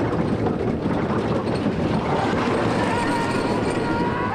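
Wooden roller coaster train running along its track: a steady, loud rattling clatter, with a high held whine joining in over the second half.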